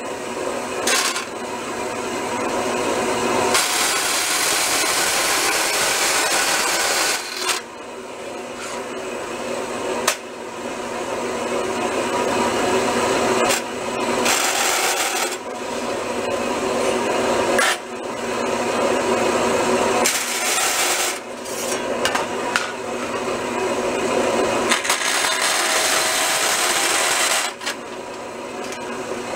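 Vertical bandsaw blade cutting thin sheet steel to notch the corners of a panel: a continuous grinding rasp that breaks off briefly several times as the sheet is repositioned between cuts.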